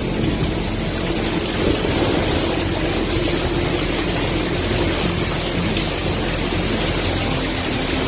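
Hurricane wind and heavy rain: a steady, dense rushing noise with no let-up.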